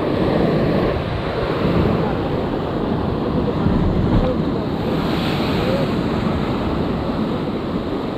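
Ocean surf washing against the rocks, with wind buffeting the microphone; a brighter hiss of wash about five seconds in.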